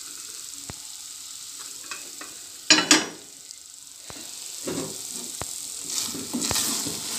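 Milk-soaked vermicelli sizzling softly in an aluminium pot on low flame as the milk cooks down to khoya, with a few small clicks. A loud short clatter about three seconds in, when the pot lid is set down on the stove.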